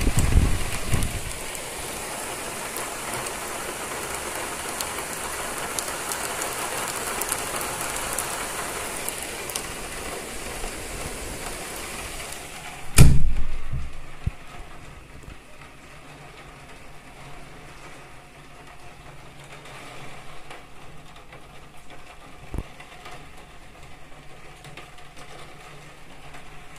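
Heavy rain pouring down in a dense, steady hiss. About halfway through, a sudden loud bang with a short low rumble cuts in, and after it the rain sounds much quieter and more muffled.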